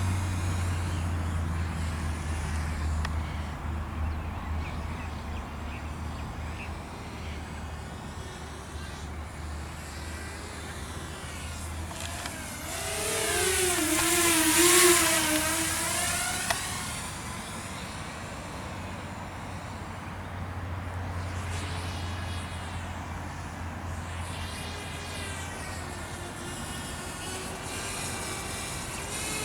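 Walkera F210 racing quadcopter's motors whining as it flies around, with the pitch sweeping up and down. It buzzes close past about halfway through, loudest then, and the whine falls as it moves away. A steady low hum runs underneath.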